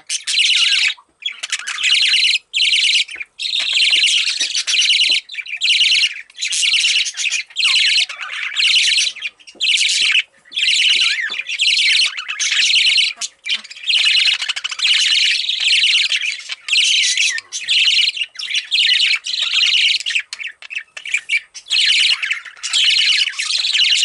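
Young budgerigar (parakeet) chirping and chattering: loud, rapid, scratchy chirps in runs of about a second, broken by short pauses, on and on.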